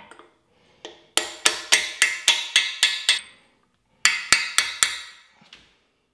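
Hammer blows on a socket-style driver, seating a freeze plug into a cast-iron Chevy 350 engine block: a quick run of about nine sharp, ringing metal strikes at about four a second, a pause, then four more.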